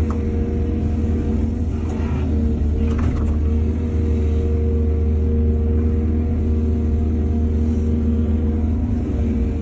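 Excavator's diesel engine running steadily with a low rumble, with a couple of faint clatters about two and three seconds in.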